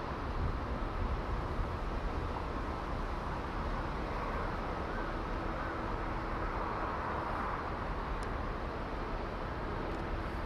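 Steady outdoor background noise: a low rumble and hiss with a faint steady hum, and one brief tick about eight seconds in.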